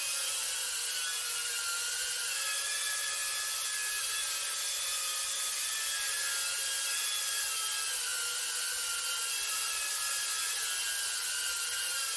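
Small FPV drone's electric motors and propellers running, a steady high whine with several tones whose pitch drifts slightly up and down.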